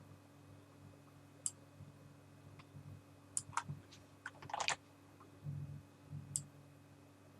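Scattered computer keyboard and mouse clicks, with a quick run of keystrokes about four and a half seconds in, over a steady low hum.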